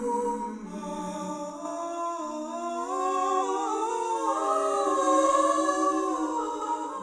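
Layered humming voices from an installation of singing sculptures, holding several notes together as a chord. Each voice slides smoothly to a new note every second or so, so the harmony shifts slowly. It swells a little louder past the middle.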